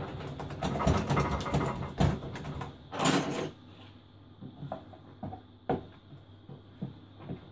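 Hands kneading and squashing a mound of foamy white slime: dense wet crackling and squelching, loudest about three seconds in, then quieter with scattered soft pops.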